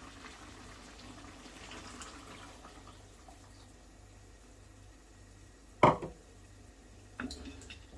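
Water being poured into a hot pan of chicken and onions, a faint splash and hiss over the first few seconds; it is added so the curry doesn't catch and burn. A single sharp clank of cookware comes about six seconds in, then a few lighter clicks near the end.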